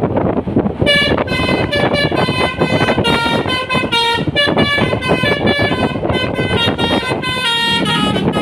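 Basuri telolet musical bus horn playing a quick tune of stepped notes again and again, starting about a second in, over the bus's engine and road noise.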